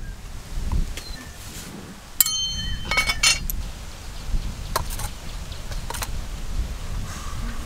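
A few light metallic clinks and taps, a steel spoon against a steel serving plate, one ringing on briefly, over a low rumble.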